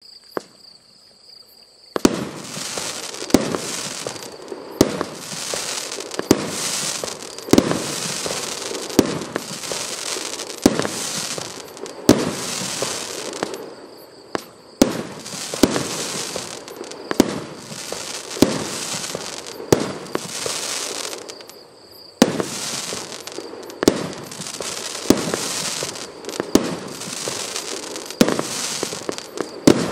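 Boneshaker firework cake firing single shots, about one every second and a half: each a sharp launch thump followed by a rushing hiss from the burst. The shots begin about two seconds in, after a faint steady high tone.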